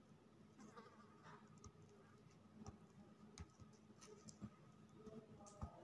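Near silence, with faint scattered ticks and scrapes of a table knife spreading chicken-mayonnaise filling on a slice of bread, over a low steady room hum.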